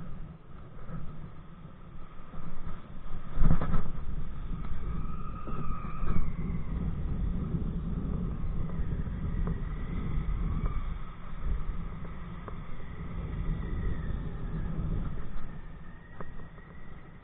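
Wind rumbling on a body-mounted camera's microphone during kite kayaking, with faint whistling tones that waver up and down in pitch. A sharp knock about three and a half seconds in.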